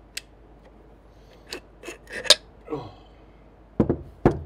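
Metal parts of a partly disassembled ARB air compressor motor being handled: a few sharp clicks, a short scrape, then two louder knocks near the end as pieces are set down.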